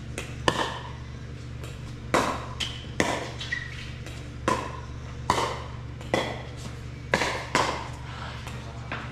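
Pickleball paddles hitting a plastic ball in a rally, sharp pops about one a second, echoing in a large indoor hall over a steady low hum.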